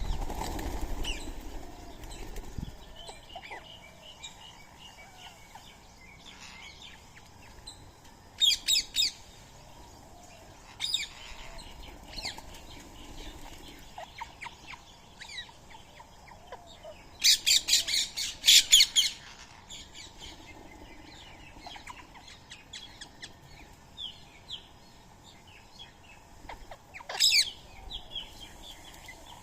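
Wild birds calling: short bursts of loud, harsh, rapidly repeated calls, the longest lasting about two seconds around two-thirds of the way through, over fainter background chirping. A flurry of low rushing noise in the first couple of seconds, like wingbeats.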